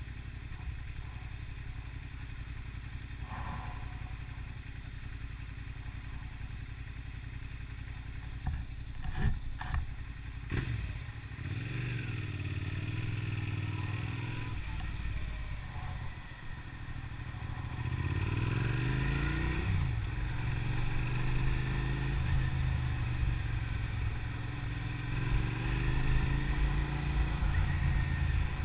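Motorcycle engine running on the move: a steady drone at first, a few sharp knocks about nine to ten seconds in, then the engine pitch rising and falling as it accelerates and shifts, getting louder in the second half.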